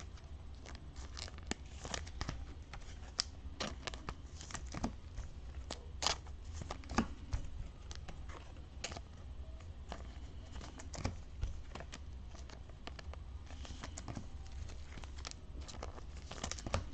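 Soft plastic card sleeves crinkling and trading cards rustling as cards are slid into the sleeves, in scattered short crackles and clicks over a low steady hum.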